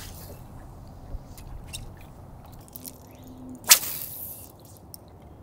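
Water lapping and dripping against a fibreglass boat hull, with small scattered clicks, and one brief sharp splash a little past halfway through.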